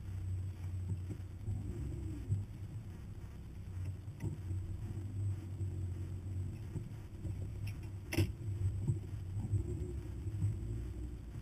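Hummer engine running low and steady as the truck crawls over a rough dirt trail, its pitch swelling slightly now and then. A sharp knock about eight seconds in, with lighter knocks about four and seven and a half seconds in, as the body jolts over bumps.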